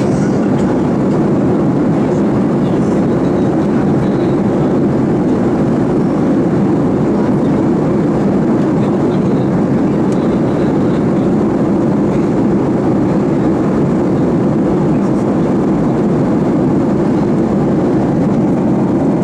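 Steady cabin noise inside a Boeing 737 airliner in flight: an even, low rush of jet engines and airflow that does not change.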